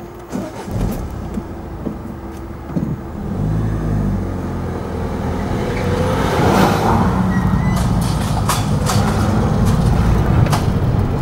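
Car engine pulling away and gathering speed, growing louder from about three seconds in, with a few light knocks over it.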